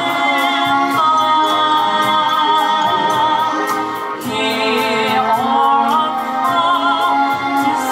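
A woman singing into a microphone over instrumental accompaniment, holding long notes with a wide vibrato.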